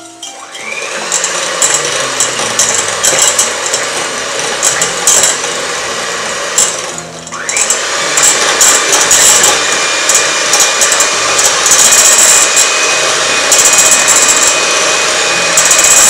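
Electric mixer running at speed, whirring as it spins up about half a second in, cut off for a moment around the middle, then started again and running steadily.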